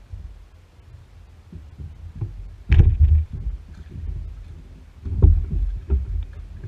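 Rowing boat worked with a single oar in the Venetian style: two heavy strokes about two and a half seconds apart, each a low thump with a splash or knock, over a low rumble.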